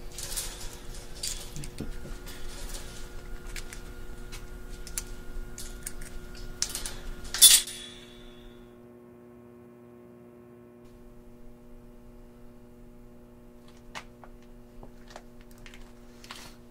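Keys jangling and a chain rattling against a padlock on a chain-link gate as someone tries to unlock it, with one sharp metallic clack about seven and a half seconds in. The key apparently does not open the lock: it is the wrong key. Afterwards there are only a few faint clicks over a low steady hum.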